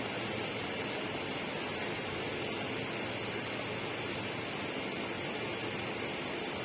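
Steady, unbroken rushing noise with no separate events, from a natural-sound ambience.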